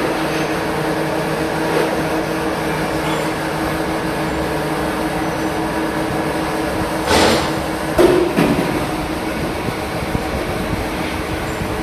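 CNC machine running with a steady mechanical hum and whine, broken by a few brief louder whooshes, one about two seconds in and a pair about seven to eight seconds in.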